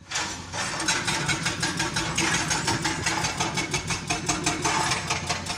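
Excavator-mounted hydraulic breaker hammering rock in rapid, regular blows, several a second, over the steady hum of the excavator's diesel engine.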